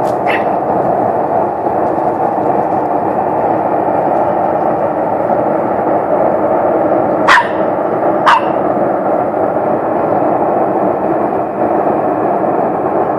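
A loud, steady rumbling of unknown origin, heard from the sky and going on without a break. A dog barks once just after the start and twice more, about a second apart, later on.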